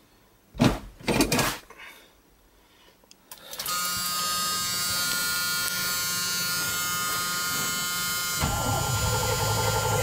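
One pump of the gas pedal gives a few loud clunks about a second in. Then a steady electric buzz sets in, and about two seconds before the end the starter begins cranking the cold original 350 V8 of the 1978 GMC Suburban with a rhythmic churn.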